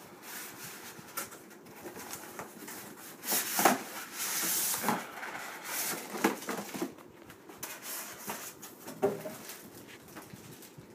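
Cardboard monitor box and its foam packing being handled and pulled apart: irregular scraping and rustling with short squeaks, loudest about four seconds in.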